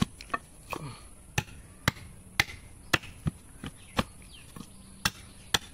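A dao blade chopping into a block of wood on a wooden stump, with sharp chops about twice a second.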